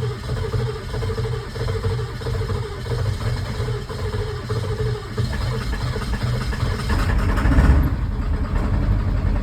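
Ford 7.3 Power Stroke V8 turbo-diesel cranking and stumbling over on nearly dead glow plugs in an even pulse of about two to three beats a second. About seven seconds in it catches and runs louder: a hard cold start.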